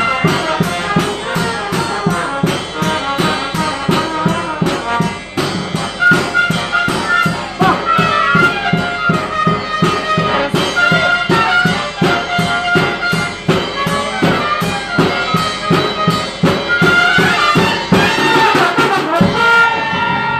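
Marching band music: drums keep a fast, steady beat under a melody on brass instruments.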